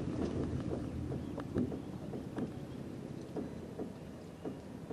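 A small boat's motor running low at slow speed, with scattered light clicks and knocks and some wind on the microphone.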